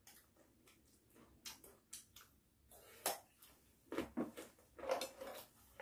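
Faint eating sounds: scattered short crunches and clicks from chewing raw carrot and picking at food with chopsticks, a few louder ones in the second half.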